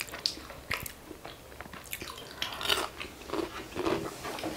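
Two people chewing by hand-fed mouthfuls, with irregular wet mouth clicks, lip smacks and an occasional crunch, picked up close by a clip-on microphone.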